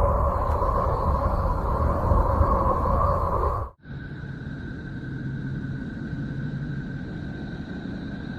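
Sonified planet 'sounds' (space-probe radio and plasma-wave data turned into audio), two in a row: a loud deep rumbling drone with steady tones that cuts off abruptly a little under four seconds in, then a quieter hissing drone with two thin, steady high tones.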